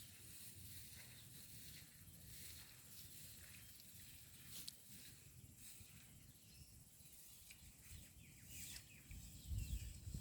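Near silence: faint outdoor ambience with a low rumble and a soft high hiss. The rumble grows louder about nine seconds in.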